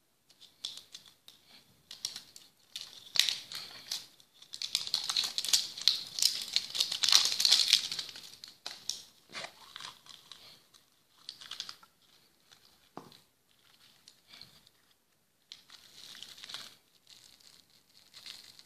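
Crinkly plastic wrapper crackling as it is handled and unwrapped, with clicks and taps of a hard clear plastic surprise-egg capsule. The crinkling is densest and loudest a few seconds in, then thins to scattered short crackles and clicks.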